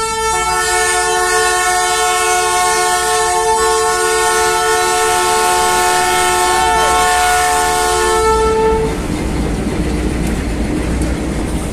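Multi-tone air horn of a lead GE BB36-7 diesel locomotive sounding one long, steady chord for about nine seconds as the train passes close by. Then the horn stops, leaving the diesel engines of the following locomotives and the wheels rolling past on the rails.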